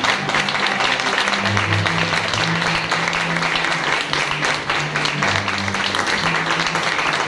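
Audience applauding steadily over music with a low bass line whose notes change about every half second to a second.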